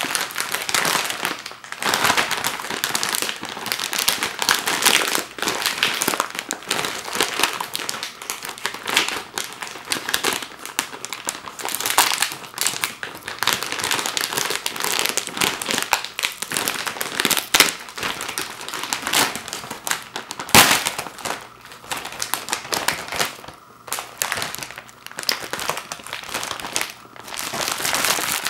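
Glossy plastic candy bag crinkling loudly as hands squeeze and pull at its sealed top to tear it open, with a single sharp crack about twenty seconds in.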